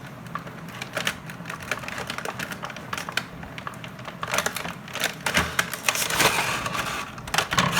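Scissors clicking and snipping again and again at toy packaging, with crackling and crinkling of the packaging being worked; the blades are not getting through it.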